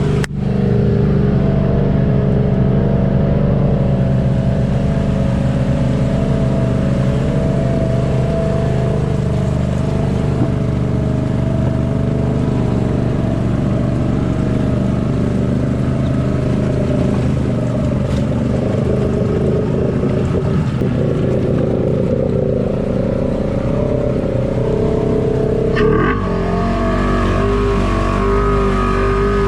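Side-by-side UTV engine running steadily. The engine sound changes abruptly about 26 seconds in.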